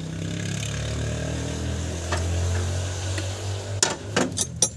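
A fine spray hisses over a steady motor hum while the engine bay of an opened-up Nissan A12 engine is sprayed, with several sharp metallic clicks near the end.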